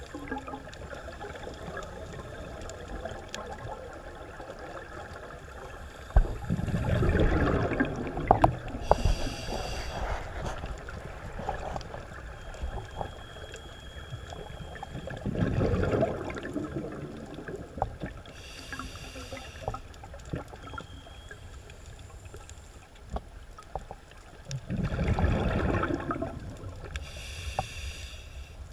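A scuba diver breathing through a regulator, heard underwater. Three times, a rumbling surge of exhaled bubbles is followed a second or two later by the short hiss of the regulator on the inhale. Faint scattered clicks come between the breaths.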